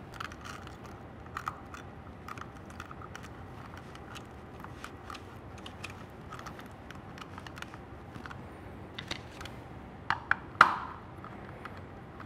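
Wire ends and small plastic parts being handled at a robot motor controller's screw terminal block, with a small screwdriver turned in it, making scattered light clicks and taps. About ten seconds in come three sharper clicks, the third the loudest.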